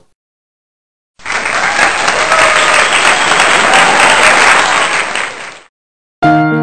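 Crowd applauding for about four and a half seconds, starting about a second in and cutting off suddenly. A piano comes in near the end.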